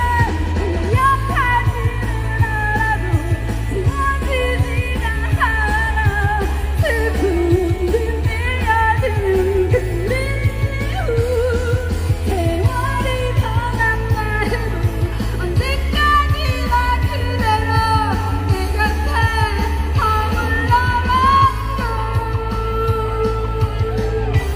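A singer performing a pop song over an amplified backing track, with a heavy bass line that changes note every couple of seconds.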